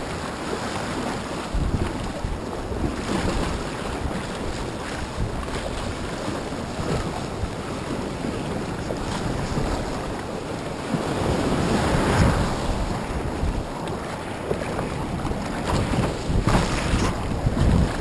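Small breaking surf washing around the hull of a Vibe Skipjack 90 kayak as it pushes out from the beach, with wind buffeting the microphone. A wave surges louder about twelve seconds in.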